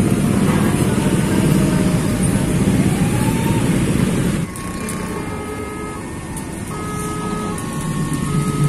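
Many motorcycle engines idling and revving together in a packed queue at a closed railway level crossing. About four and a half seconds in it cuts abruptly to a quieter engine rumble, with a string of short high electronic tones at changing pitches.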